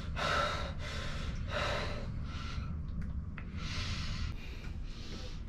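A man breathing heavily through his mouth, panting after a struggle: quick breaths at first that slow toward the end, over a steady low hum.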